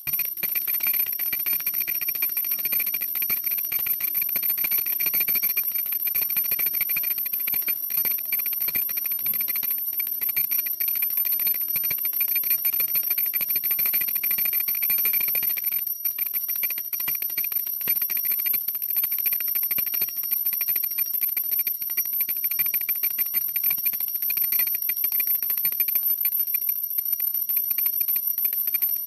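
Small brass puja hand bell rung continuously and fast during aarti, a dense unbroken jingling with a steady high ring.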